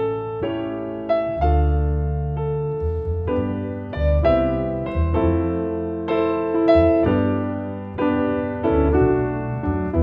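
Grand piano and double bass playing a slow, gentle piece together: the piano's chords and melody over low bass notes that change about once a second.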